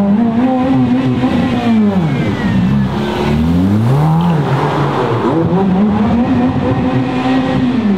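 A high-performance car engine being revved repeatedly. The first rev is held and then drops back at about two seconds, there is a short blip about four seconds in, and a longer rev rises and is held before dropping at the end.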